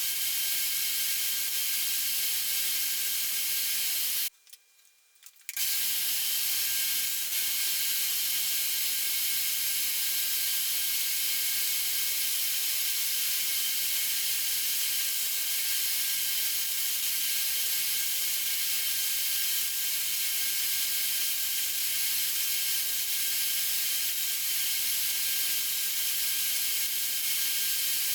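Bandsaw running, a steady hiss with a faint high whine, as segments are cut. The sound drops out for about a second around four seconds in.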